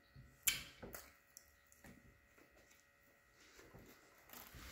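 Quiet eating sounds: a bite into a soft chicken sandwich about half a second in, then mouth noises of chewing, and a breath blown out through pursed lips near the end.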